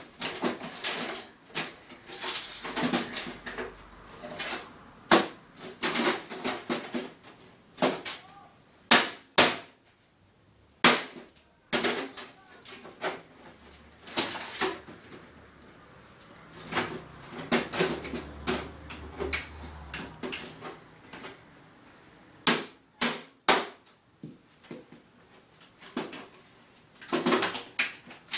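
Sheet-metal computer tower case being pried and bent apart: irregular sharp metallic clanks, snaps and rattles, some in quick clusters, with short pauses between.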